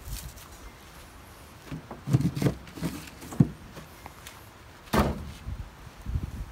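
A few scattered low thuds and knocks, with one sharp knock about five seconds in, the loudest of them.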